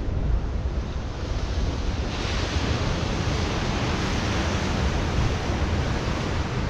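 Sea waves breaking and washing over rocks, the hiss of surf swelling about two seconds in, with wind buffeting the microphone as a steady low rumble.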